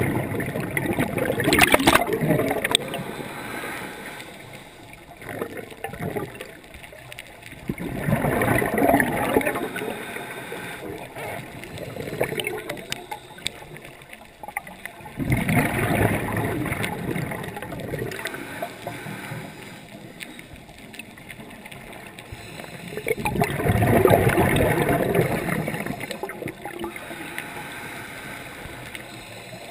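Scuba regulator breathing underwater: exhaled bubbles gurgling past the microphone in four swells about seven or eight seconds apart, with quieter stretches between breaths.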